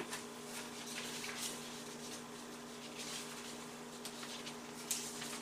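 Quiet room tone: a steady low hum with a few faint, short rustles and soft clicks.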